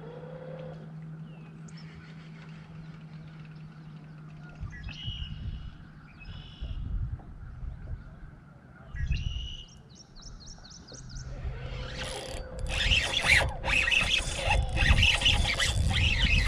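Songbirds chirping in short bursts several times over a low rumble. About twelve seconds in, a much louder rough rushing and rattling sets in and carries on, as a hooked largemouth bass is fought on a spinning rod and reel.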